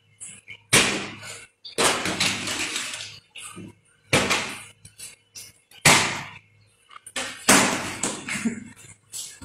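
A rubber slipper slapping down hard on a plastic bottle on a concrete floor: five loud, sharp slaps about every one to two seconds, some followed by a second or so of crackling rustle.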